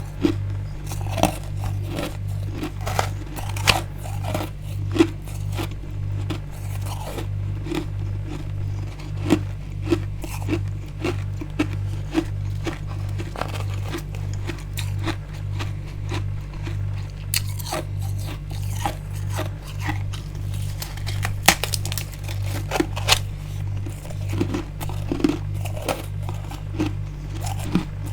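Built-up freezer frost being bitten and chewed: many irregular crisp crunches, some sharper and louder than others, over a low steady pulsing hum.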